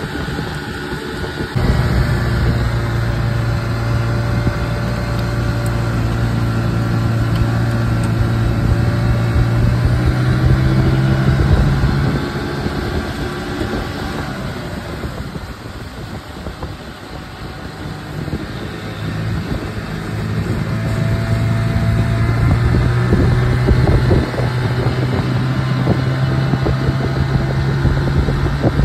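Outboard motor pushing an aluminium jon boat along. Its steady drone rises sharply about two seconds in, eases off around the middle, then picks up again.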